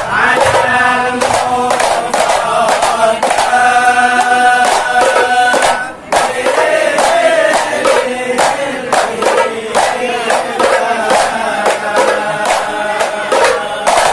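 Hadrah ensemble: a group of men singing a devotional chant together to hand-struck frame drums (rebana) played in a quick, steady rhythm. The music breaks off briefly about six seconds in, then picks up again.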